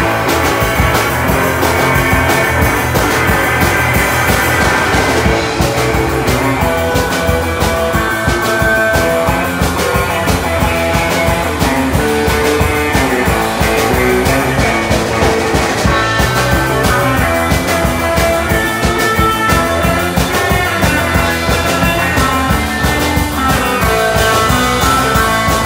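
Live rock band playing: electric guitar and bass over a drum kit keeping a fast, steady beat.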